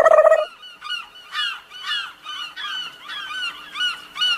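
A steady horn-like note that cuts off about half a second in, followed by a run of short bird-like chirping calls, about four a second.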